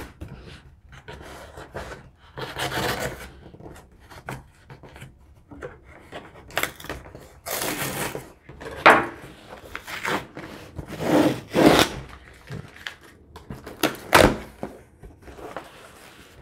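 A knife slicing through packing tape and scraping along a cardboard shipping box, in a series of rasping strokes, with the cardboard flaps pulled open near the end.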